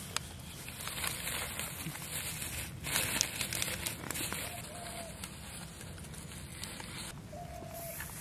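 Soft crinkling and rustling of a large leaf under a hand as it rubs chilli and spice powder onto halved boiled eggs, with small crackly touches throughout and a busier burst about three seconds in.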